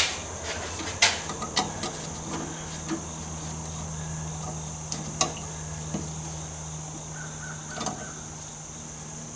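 Scattered sharp clicks and knocks, about six, the loudest right at the start, from plastic quick-connect fuel-line fittings being pushed onto a new inline fuel filter on a 2000 Ford F-150 and tugged to check that they have latched. A steady high-pitched hiss runs underneath.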